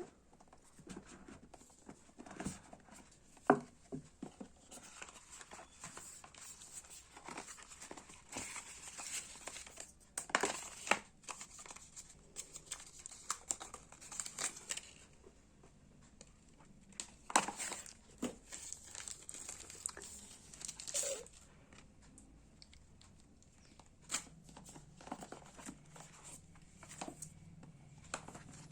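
Phone packaging being handled and unwrapped: plastic film and paper crinkling and tearing, with scattered sharp clicks and taps of the box and its parts.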